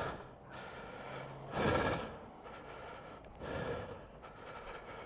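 A shaken motorcyclist breathing hard just after being rear-ended: two heavy breaths out, about a second and a half in and again a couple of seconds later, the second weaker.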